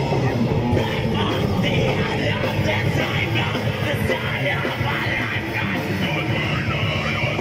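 Live rock band playing electric guitar, bass guitar and drums, with a steady beat.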